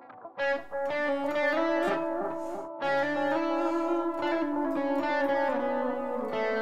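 Electric guitar with overdrive played through a StewMac Tape Op delay pedal: a slow line of held notes stepping up and down, each one overlapping the next.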